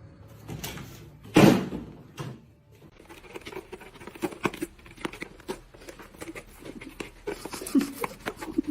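Quick, irregular light tapping and scratching, like small feet or claws pattering on a surface, with one loud rustling whoosh about a second and a half in.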